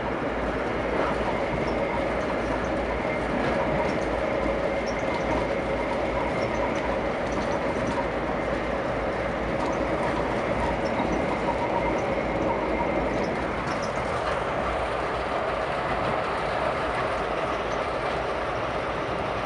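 Steady running noise inside a VIA Rail LRC passenger coach at speed: wheels rumbling on the rails, with faint scattered clicks from the track. The higher hiss eases a little about two-thirds through.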